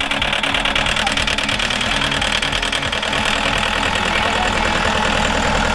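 Cat skid steer loader's diesel engine running steadily up close, with a fast, even firing pulse, just after catching on a hard cold start in freezing weather.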